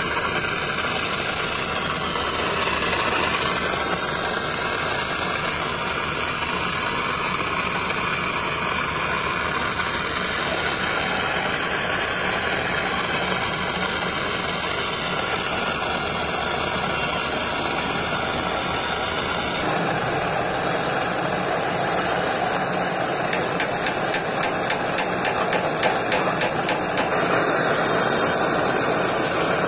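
Brazing torch flame hissing steadily while heating copper pipe joints on a rotary air-conditioner compressor. The hiss changes abruptly about twenty seconds in, with light crackling in the later part.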